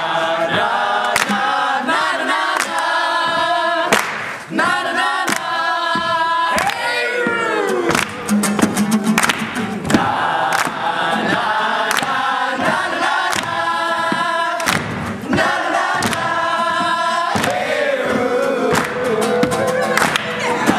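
A group of voices singing together, with sharp percussive hits throughout and a sliding fall in pitch about seven seconds in.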